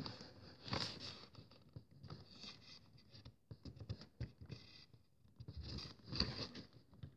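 Faint, irregular scratching, tapping and scraping of fingers on the cardboard of a chocolate advent calendar while searching for a door, in short clicks and scrapes.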